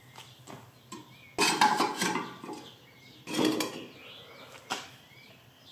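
Hollow clay bricks and the steel rods of a brick-lifting clamp made from tower pincers clinking and clattering against each other as the clamp is squeezed onto the bricks. The clatter comes in two bursts, about a second and a half in and again a little past three seconds, with a few lighter clicks around them.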